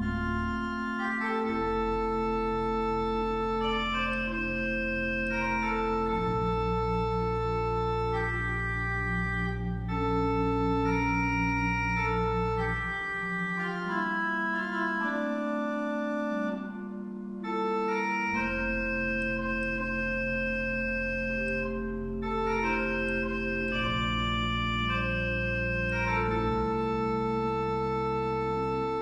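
Schwenkedel pipe organ playing a chorale prelude: a cornet solo line over soft flute stops (Cor de nuit 8', Flûte douce 4'), with sustained chords and 16' and 8' pedal bass notes. The pedal bass drops out for about five seconds midway, then returns.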